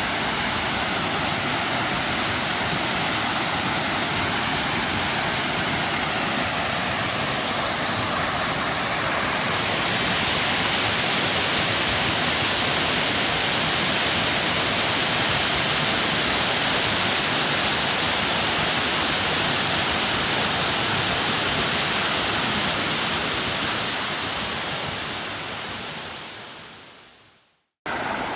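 Waterfall rushing steadily, a little louder and brighter about nine seconds in, then fading out near the end.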